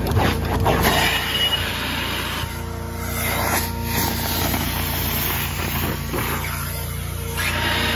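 Carpet-extraction machine's vacuum and pump running with a steady drone, with the rushing hiss of suction pulling air and water through carpet pile as the wand and then a stair hand tool are drawn along a stair. The rushing dips about two and a half seconds in and swells again around four seconds in.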